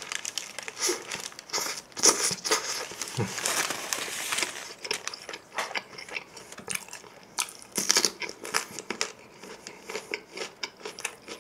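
Paper burger wrapper crinkling as a burger is bitten into, then close-up chewing with small crackles and mouth clicks. The crinkling is densest in the first half, with another brief burst later.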